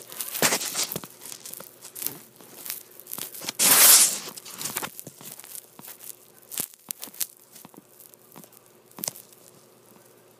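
Rustling and scraping handling noise against fabric, with scattered small clicks and one louder rush about four seconds in.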